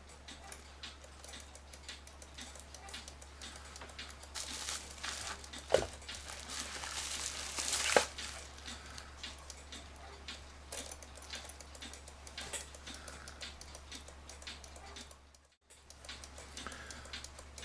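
Battery-powered Citizen cuckoo clock ticking faintly as its pendulum swings, over a low steady hum. There are two louder knocks, about six and eight seconds in.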